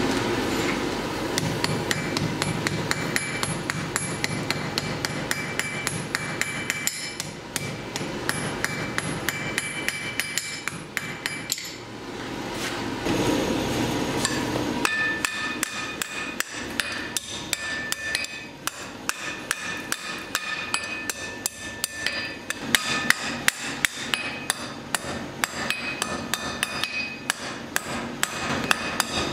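Blacksmith's hammer striking a red-hot steel bar on an anvil in a steady run of blows, each blow ringing off the anvil. Through the first half a steady rush of the forge runs underneath.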